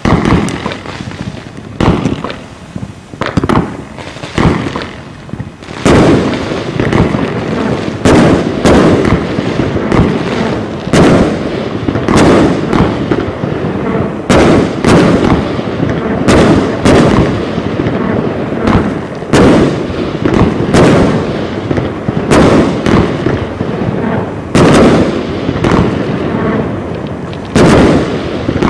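Heron Cake 456 consumer firework batteries (cakes) firing: a rapid string of launch thumps and shell bursts over constant crackle. The shots come sparsely at first and almost without a break from about six seconds in.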